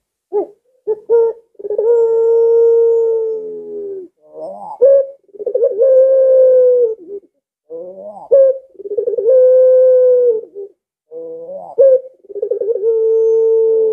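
Ringneck dove (puter pelung) cooing four times. Each coo opens with a few short rising notes and runs into a long drawn-out note, about every three and a half seconds.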